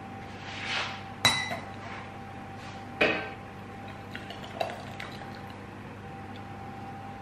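Kitchenware clinking: a steel jam funnel, a saucepan and a glass jar knock together with two sharp ringing clinks, about one and three seconds in, then a lighter tap while jam is poured from the pan through the funnel into the jar. A faint steady hum lies underneath.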